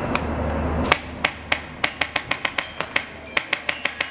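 Airsoft rifle firing a fast string of single shots: sharp clicks starting about a second in, coming roughly four to six a second.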